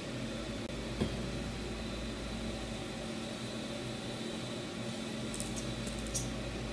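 Steady background hum, with one light click about a second in and a few faint ticks near the end as a small metal palette knife scrapes excess white chocolate off a cake pop.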